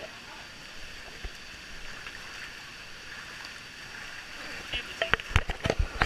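Steady rush of flowing water in a tube-ride channel, then from about five seconds in a quick run of loud thumps and splashes close to the camera.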